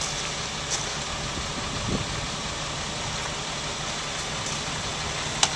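Heavy diesel engines of a farm tractor and a grain truck idling steadily, with a few faint clicks.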